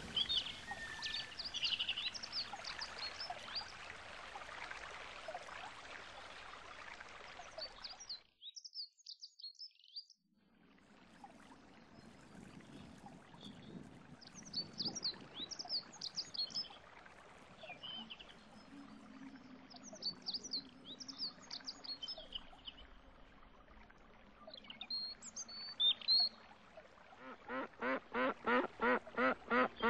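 Small birds chirping against faint steady background noise, broken by near silence for a couple of seconds about eight seconds in. Near the end a duck starts quacking in a fast, even run of about three quacks a second.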